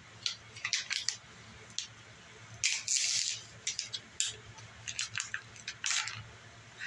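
Flashlight packaging being opened by hand: a run of short rustles, crinkles and clicks, with one longer rustle about three seconds in.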